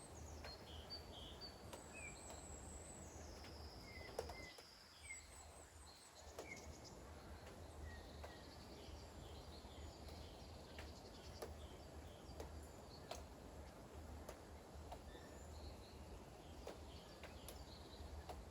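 Faint light rain with scattered sharp drips, and small birds giving short chirps and whistles now and then over a low steady rumble.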